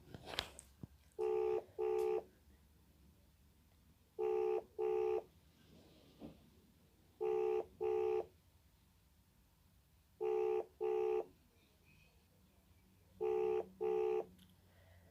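Outgoing call ringing tone of a phone video call, heard through the phone's speaker: a double ring repeated every three seconds, five times.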